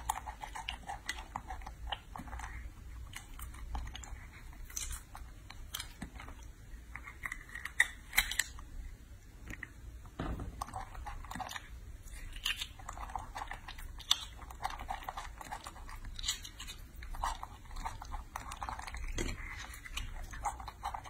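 A young macaque breaks open the thin brittle shells of longan fruit with its fingers and chews the flesh, making irregular small cracks and crunches.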